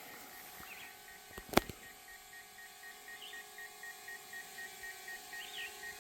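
Steady electronic beeping, about four short high beeps a second, starting about two seconds in over a faint steady hum. Just before the beeping starts there is a single sharp click, and a few faint bird chirps come through.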